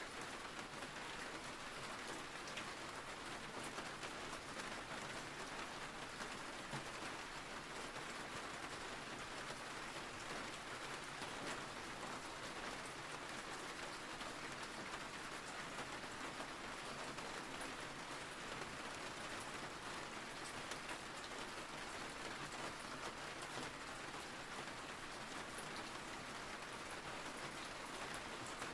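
Steady rain falling on a surface, an even hiss with the fine patter of drops.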